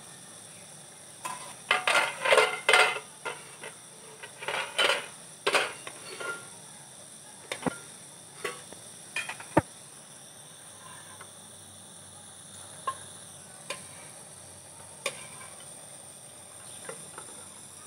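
Metal spoon scraping and clinking against the inside of a metal karahi, first in quick clusters over several seconds, then as single clinks spaced a second or more apart. A steady high insect chirring runs underneath.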